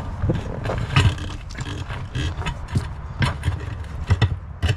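Crowbars prying an ATV tire's bead back over the rim a little at a time: irregular metal knocks and clanks with scraping.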